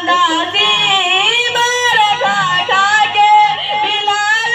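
Boys singing a naat, a devotional song in praise of the Prophet Muhammad, into microphones, with a gliding, ornamented vocal line.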